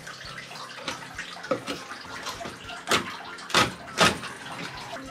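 Kitchen knife cracking through the head and collar bones of a chicken grunt on a wooden cutting board: a few sharp knocks and crunches, the loudest two close together about three and a half seconds in. A tap runs in the background.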